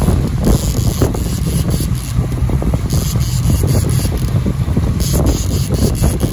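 Wind buffeting the microphone: a loud, low, uneven rumble with gusty crackling.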